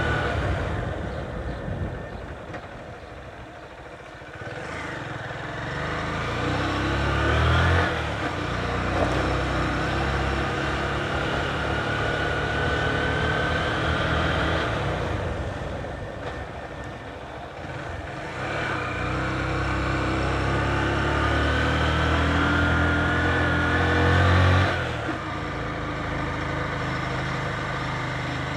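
Motorcycle engine running as the bike rides along, twice pulling up with a rising pitch, about a quarter of the way in and again near the end, then easing off as the throttle closes.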